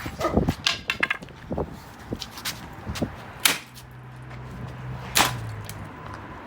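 Sharp blows smashing an ATV radiator: a quick run of lighter hits, then two loud strikes about three and a half and five seconds in.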